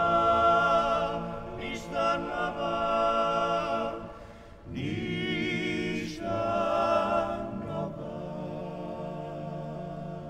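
A cappella male vocal group singing in the Dalmatian klapa style, holding long chords between lines, with short breaks between phrases.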